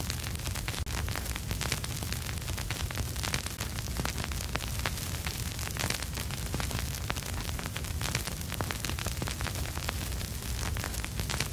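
Vinyl record surface noise with no music: dense, irregular crackle and pops over a steady hiss, with a low rumble underneath.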